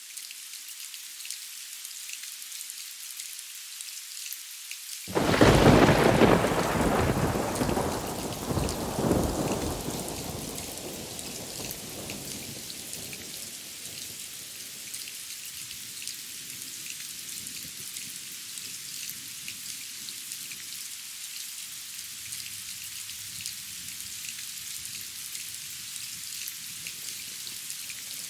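Steady rain falling, with one sudden loud thunderclap about five seconds in that rolls away over the next several seconds, swelling again briefly a few seconds later before the rain is left on its own.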